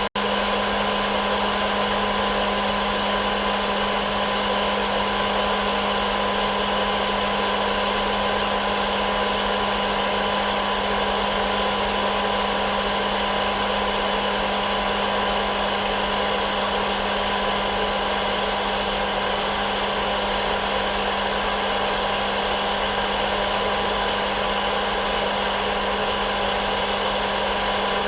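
Hair dryer running steadily: an even rush of air with a constant low hum and a higher steady whine, with no change in speed.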